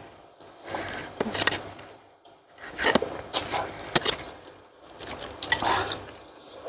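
Cutlery clinking and scraping against a bowl of noodles during eating, in three short bouts with sharp clicks.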